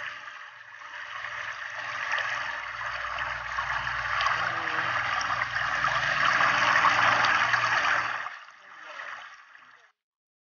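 Water running from a garden hose and splashing onto a wet dog's coat and into a basin, growing louder, then dropping away sharply and stopping a little before the end.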